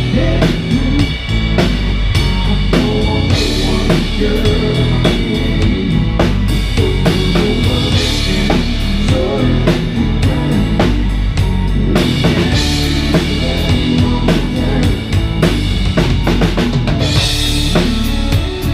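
Live band playing, heard from on stage with the drum kit up front: kick, snare and rimshots keep a steady beat under electric guitar. A bright crash comes about eight seconds in and again near the end.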